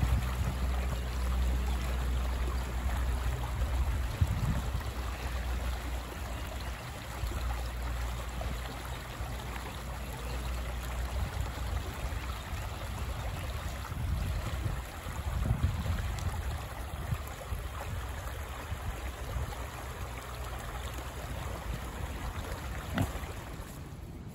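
Steady outdoor background noise: an even hiss over a low rumble, with a few soft thumps.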